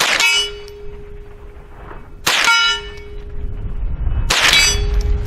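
Three shots from a Henry AR-7 .22 survival rifle, about two seconds apart, each followed by a clanging steel target that rings on for over a second.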